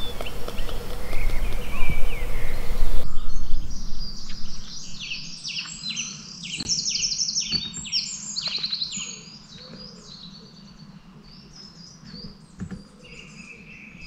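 Wild songbirds singing: fast phrases of repeated notes and trills, several birds overlapping, fading to a quieter stretch with one steady high whistle near the end. It opens with about three seconds of loud hiss and low rumble that cuts off abruptly.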